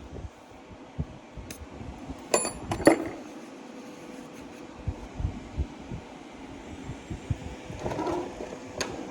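Steel final-drive parts being handled on a shop bench: scattered knocks and two sharp, ringing metal clinks about two to three seconds in, over a steady hum.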